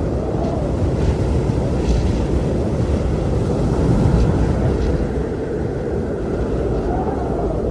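Blizzard wind blowing in a steady low rush, with a faint whistle rising and falling in pitch about half a second in and again near the end.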